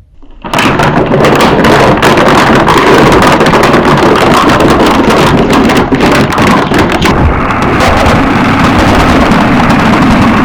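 Car tyre rolling over and crushing crunchy objects: loud dense crackling and snapping over the noise of the car, starting suddenly about half a second in. The crackling thins out after about seven seconds, leaving steady rumbling noise.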